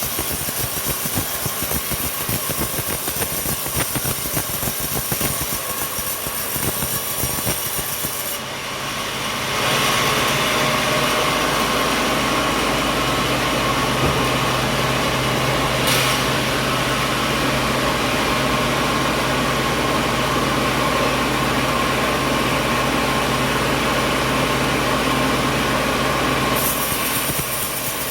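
Sawmill machinery running: a motor-driven saw processing coconut wood. About a third of the way in it abruptly becomes a louder, steady hum and whine, typical of a saw cutting through a log, which stops abruptly near the end.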